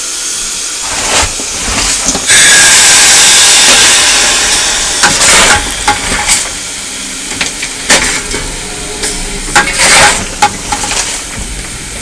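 Steam locomotive No. 190's cab: a loud burst of hissing steam starts about two seconds in and lasts a couple of seconds, followed by scattered metallic clanks and knocks from the cab.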